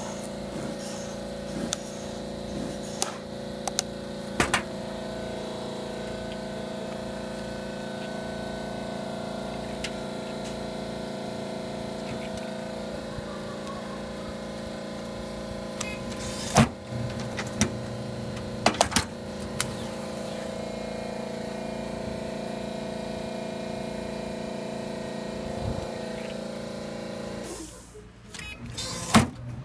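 Bandamatic semi-automatic band strapping machine running with a steady hum, broken by sharp clacks: several in the first few seconds, a loud one about 17 s in, a cluster around 19 s and one near the end. The hum stops about 28 s in.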